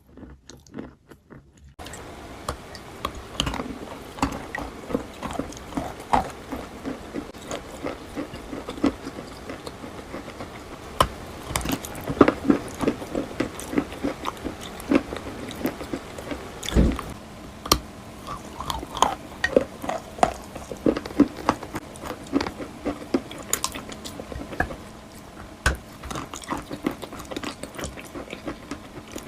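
Wet white chalk being bitten and chewed close to the microphone: a dense, irregular run of crisp crunches and crackles that starts about two seconds in.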